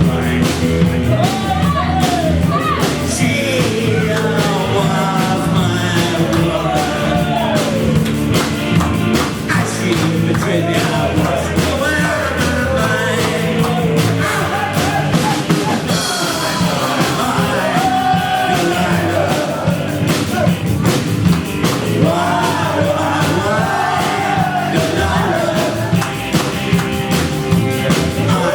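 Live rock band playing a song: a singer's voice over a steady bass line and drums.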